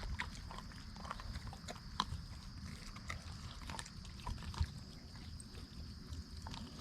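Wolfdogs feeding on raw deer carcass: irregular cracks and crunches of bone being chewed, with wet tearing and gnawing.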